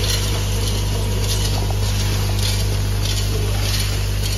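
Factory machinery running: a steady hum with a short hiss that repeats about once a second.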